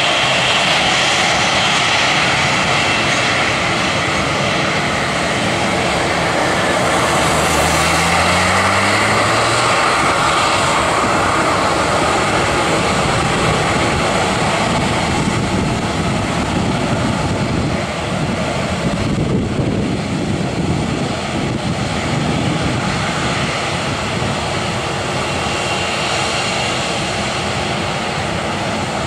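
Boeing 737-800's CFM56-7B turbofan engines running steadily as the airliner rolls along the runway. About eight seconds in, a short low rising tone rides over the steady engine noise.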